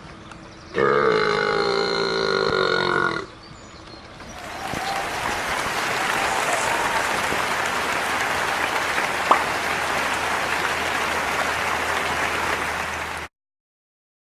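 A long, loud human burp with a steady pitch, lasting about two and a half seconds. From about four seconds in comes a steady wash of applause, which cuts off suddenly near the end.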